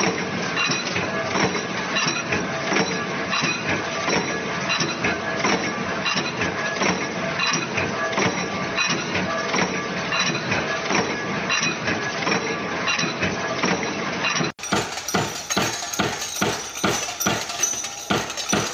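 Metal stamping press working sheet metal, a dense, continuous metallic clatter. About fourteen seconds in it cuts to a small punch press striking in a steady, quick beat of sharp strokes.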